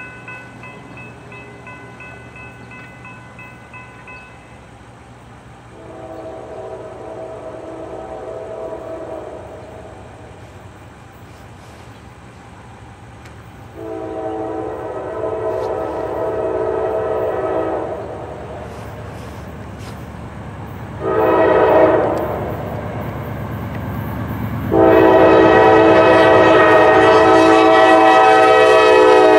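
Norfolk Southern diesel freight locomotive's multi-chime air horn blowing the grade-crossing signal: long, long, short, long, with the last long blast the loudest. Under it the rumble of the approaching locomotives grows steadily louder.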